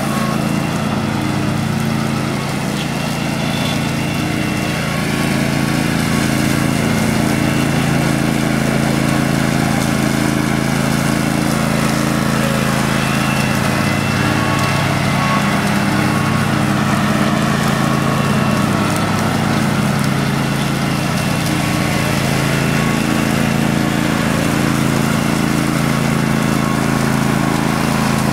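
Older Garden Way Troy-Bilt Hydro garden tractor's 14 hp Briggs & Stratton Vanguard V-twin running steadily at full throttle with the mower deck cutting grass. Its pitch holds steady throughout, dipping slightly in loudness a few seconds in.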